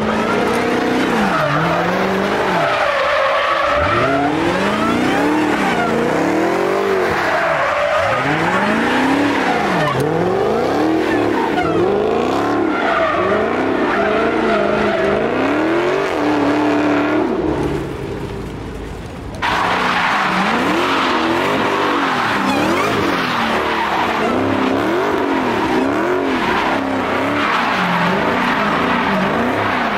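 Dodge Charger's V8 doing donuts: the engine revs up and falls back again and again, about every second and a half, over the hiss and squeal of spinning tyres. The sound drops away for about two seconds past the middle, then the revving picks up again.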